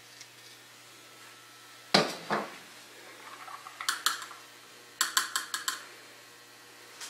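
PVC pipe fittings and a can of PVC cement being handled as the cement is applied: two sharp knocks about two seconds in, a few clicks, then a quick run of rattling clicks about five seconds in.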